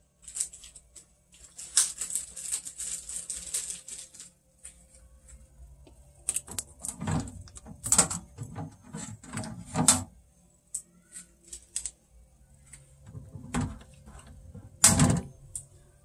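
Blue packing tape being peeled off a refrigerator's plastic shelves and door bins. There is a long peeling rasp about two seconds in, then scattered clicks and knocks as the tape and plastic parts are handled.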